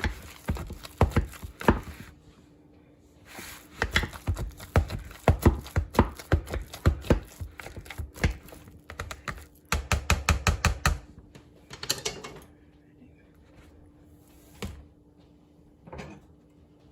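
A kitchen utensil knocking and scraping against cookware in quick runs of sharp clicks, broken by short pauses, with a few single knocks near the end. A faint steady hum sits underneath.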